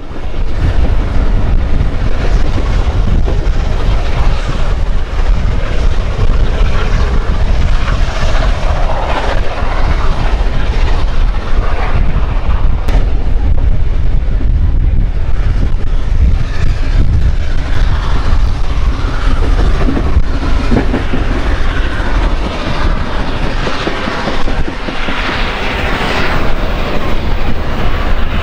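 Carriages of a train hauled by Beyer-Garratt steam locomotive 6029 running along the line, loud and steady: the rumble and clickety-clack of wheels on the rails.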